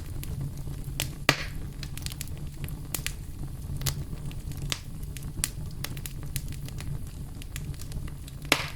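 Wood fire burning in a fireplace, crackling with scattered sharp pops over a low steady rumble. Two louder snaps come with a brief hiss, about a second in and near the end.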